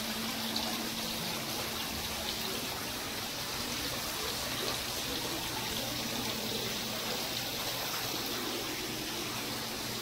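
Steady running water, an even trickling rush that does not change, with a faint steady hum underneath.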